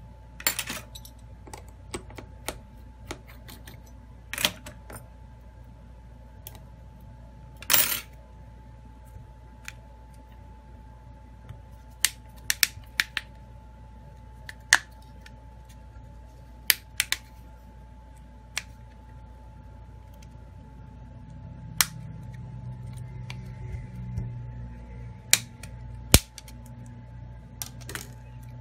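Scattered clicks, snaps and taps of a Samsung Galaxy A21s's plastic housing parts being handled and pried apart, with a stretch of low rubbing handling noise in the last third.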